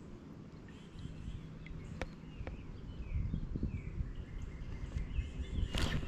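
Outdoor creek ambience: small birds chirping over a low wind rumble on the microphone, with a few sharp clicks and a brief loud rush of noise near the end.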